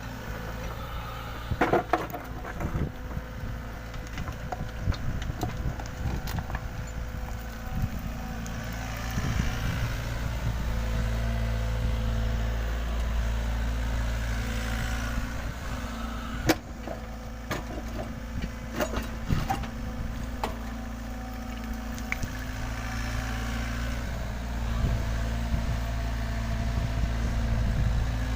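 LiuGong 906F mini excavator's diesel engine running steadily under work, with scattered sharp metallic knocks and clanks from the machine.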